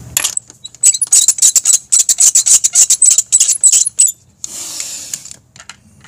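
Steel lug wrench spinning a lug nut onto a wheel stud: a quick run of metallic clicks, about six a second for some three seconds, then a short scraping rasp.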